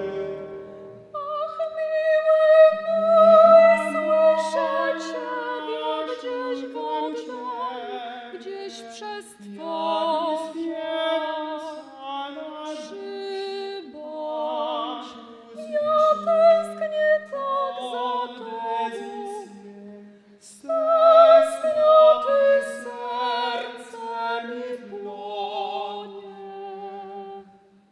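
A tenor and a female singer singing a slow classical duet in operatic style, long held notes with vibrato, their voices often overlapping. The singing stops briefly about twenty seconds in, then goes on.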